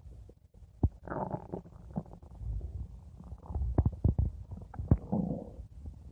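Stomach growling: low rumbles and gurgles coming in several bouts, with short sharp pops among them.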